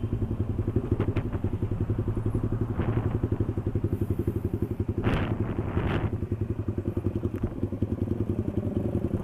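Single-cylinder motorcycle engine running at low revs as the bike rolls along and slows, an even, rhythmic putter, with two brief rushes of noise about five and six seconds in.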